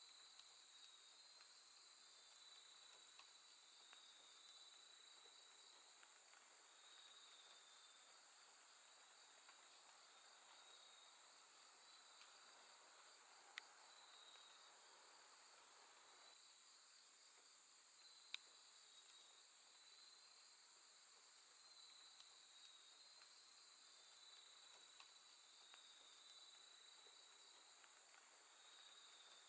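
Faint late-summer night chorus of crickets and other grass insects: a steady high trill over a wavering lower chirping, with bursts of very high pulsed calls during the first six seconds and again near the end. Two brief sharp clicks in the middle.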